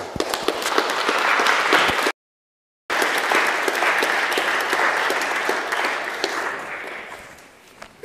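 Audience applauding, a dense patter of many hands clapping. The sound drops out completely for under a second about two seconds in, then the applause resumes and dies away near the end.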